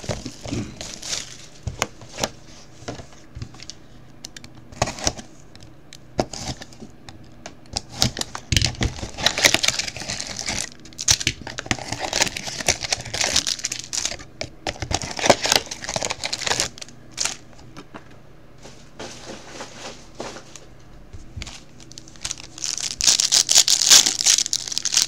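Plastic wrap crinkling and tearing as a sealed trading-card box is unwrapped and opened by hand, with scattered clicks of cardboard handling. The crinkling is loudest near the end.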